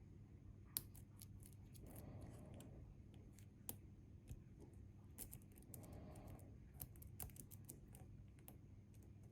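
Faint, scattered metallic clicks and ticks of lock picks working inside a Bi-Lock cam lock, with one sharper click about a second in.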